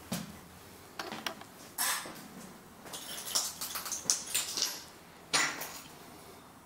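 Footsteps crunching over broken ceramic tiles and plaster rubble, with irregular clinks and scrapes of shards underfoot.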